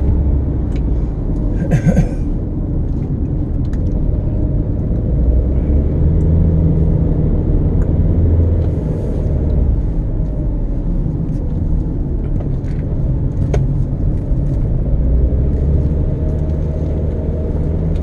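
Car interior road noise while driving: a steady low rumble of engine and tyres, with scattered faint clicks and a brief higher sound about two seconds in.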